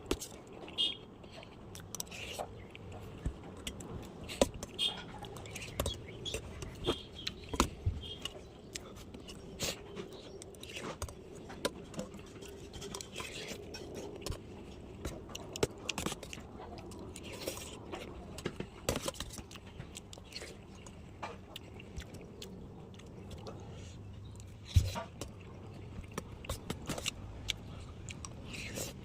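Close-up chewing and eating sounds as a mouthful of rice and vegetable curry is eaten, with frequent short clicks and scrapes of a large metal cooking spoon against the plate; one sharper clink comes about 25 seconds in.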